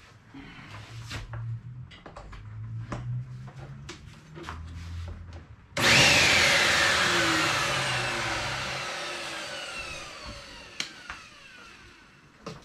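Handling knocks, then a vacuum cleaner's motor turbine starts spinning about halfway through. Its whir falls steadily in pitch and fades over several seconds as it winds down. The turbine is clogged with dust, the suspected cause of the cleaner's loud noise.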